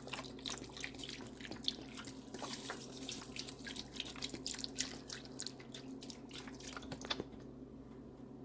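Beef broth poured into a baking dish over meat and vegetables, splashing and trickling; the pour stops suddenly about seven seconds in.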